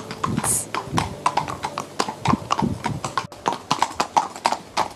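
Horses' hooves clip-clopping on tarmac as two ridden horses walk: a quick, uneven run of sharp hoof strikes, several a second.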